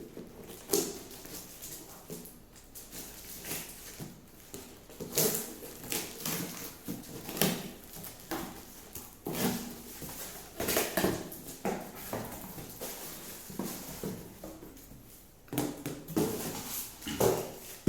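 Product packaging being opened by hand: irregular rustling, crinkling and tearing crackles, some louder than others.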